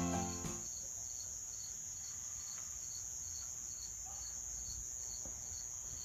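Crickets chirping: a steady high-pitched trill with a fainter chirp repeating about three times a second, after music fades out in the first half second.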